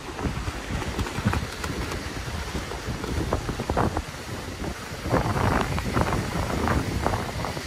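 Wind buffeting the microphone in strong irregular gusts, with the beach shade's large fabric canopy flapping and rustling as it is lowered.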